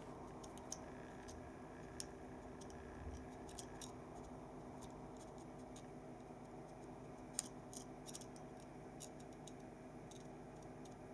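Faint, scattered small clicks and ticks from handling the opened plastic parts of a computer mouse with small tools, the loudest few about seven and a half seconds in, over a steady low hum.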